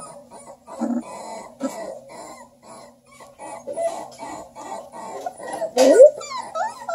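Three-week-old Redbone Coonhound puppies making small grunts and squeaks as they wrestle and mouth each other, with one loud, wavering yelp about six seconds in.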